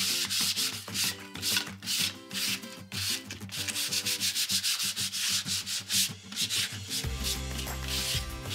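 Medium-grit sandpaper rubbed by hand back and forth over a dried chalk-painted wooden sign, a run of short scratchy strokes about three or four a second. The light sanding softens the painted edges.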